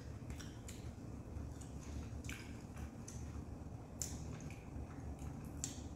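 Close-miked eating sounds: chewing with a few short wet smacks and clicks, roughly every one and a half seconds, over a low steady hum.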